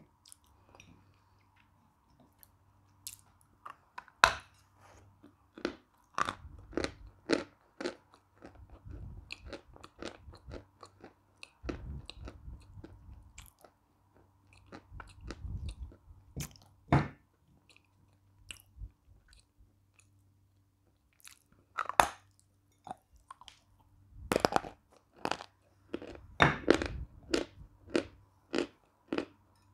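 Close-miked crunching and chewing of a piece of eating chalk. There are sharp, irregular crunches, with softer chewing between them and a faint steady hum underneath.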